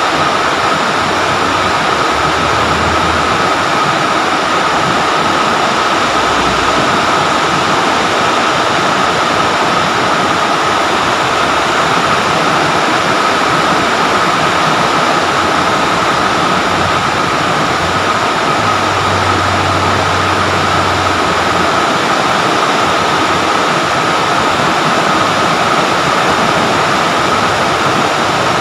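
Steady rain falling on trees and leafy foliage, an even, unbroken hiss, picked up by a phone's microphone.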